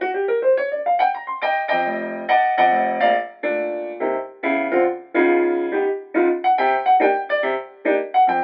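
Background music: a piano playing a light melody of struck notes, with a quick rising run in the first second.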